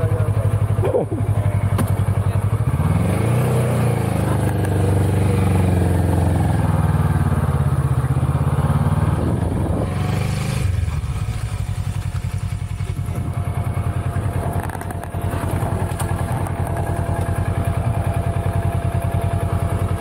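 Motorcycle engine running, its note rising and then easing back down over several seconds in the first half, then settling to a steady low run.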